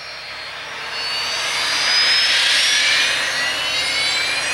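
Cessna Citation M2 business jet taxiing, its twin Williams FJ44 turbofans whining at taxi power. The jet noise grows louder about a second in, with several high whining tones that slide upward in pitch.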